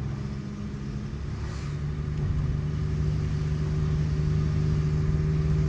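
Car engine running with a steady hum that grows louder about two seconds in.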